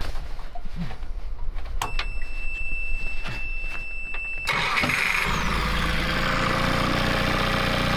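Electric-start outboard motor on an inflatable dinghy being restarted with the key. A steady high-pitched buzzer tone sounds for about two and a half seconds, then the starter cranks and the engine catches about five seconds in and settles into a steady idle. The restart is to check that the cooling-water telltale jet, just cleared of a blockage, is flowing again.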